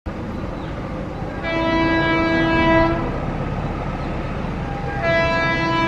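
WAG-9 electric locomotive's horn sounding two long steady blasts, the first about a second and a half in and lasting about a second and a half, the second starting about five seconds in and still sounding at the end, over the steady rumble of the approaching freight train.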